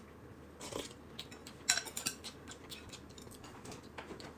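Faint, scattered clicks and clinks of chopsticks and a porcelain spoon against ceramic bowls and a plate, the sharpest about a second and a half in.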